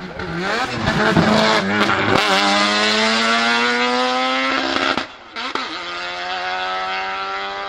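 Twin-turbo 13B rotary engine of a Mazdaspeed March 84G Group C race car accelerating hard. It is low and uneven for the first two seconds with a few sharp pops, then rises steadily in pitch, drops suddenly at a gearchange about five seconds in, and climbs again as the car pulls away.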